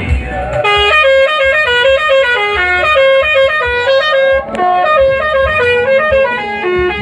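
Bus telolet horn playing a quick tune of stepped notes, starting about a second in, with a short break around the middle.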